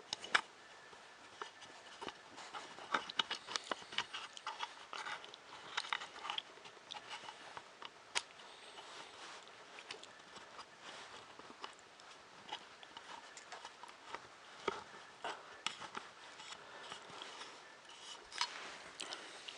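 Faint, irregular clicks, taps and light scrapes of small screws, a screwdriver and plastic parts being handled during hand assembly of a 3D printer kit.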